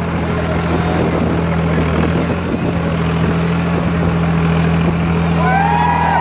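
Preet 955 tractor's diesel engine running at a steady speed while the tractor is held reared up on its rear wheels. About five and a half seconds in, shouts and whoops from the crowd rise over it.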